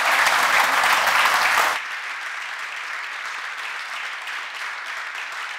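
Audience applauding in a hall. The clapping is loud for the first couple of seconds, then drops suddenly to a softer, steady level.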